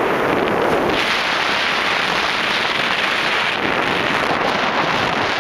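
Strong wind rushing over a sailboat and buffeting the microphone, a steady loud roar of noise that turns hissier about a second in.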